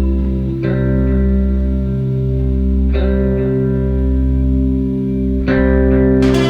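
Background music: plucked guitar-like chords over a steady bass, with a new chord struck every couple of seconds.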